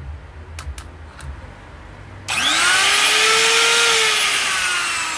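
Makita M3700 trim router's brushed motor switched on about two seconds in and run free in the hand. It spins up suddenly with a loud rush of fan noise and a quickly rising whine, then is switched off and winds down, the whine falling slowly. Before it start there are a few light handling clicks.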